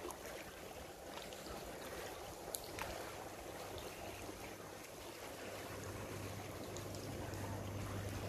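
Faint water lapping and dripping around a canoe paddled through a sea cave, with a few small clicks, and a low steady hum that comes in about three seconds in and grows slightly louder.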